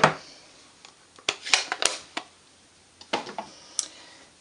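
Handling of a rubber stamp and card stock on a craft table: a rustle at the start, then scattered light clicks and taps.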